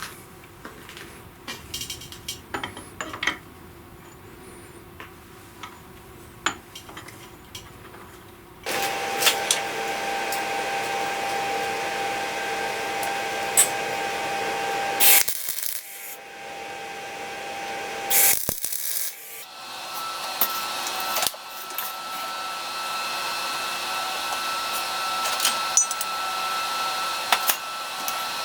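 A few scattered clicks and knocks of tool handling, then a power tool starts about nine seconds in and runs with a steady tone. It stops briefly twice and starts again.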